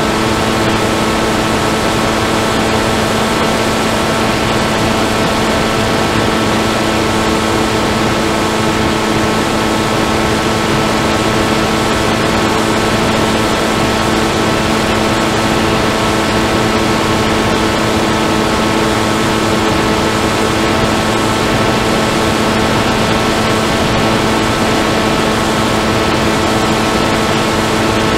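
Motor and propeller of an FPV model aircraft, heard from its onboard camera, running at a constant steady pitch with a rushing hiss of air beneath it.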